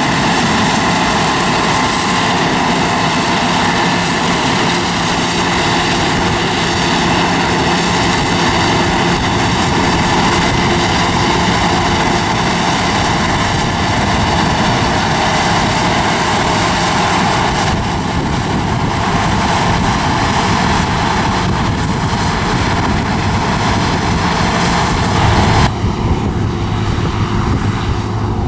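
New Holland combine harvesters running at work, their engines and threshing machinery making a loud, steady mechanical drone with a high whine. About 26 seconds in, the higher sounds drop away and a low hum comes forward as the machine moves off.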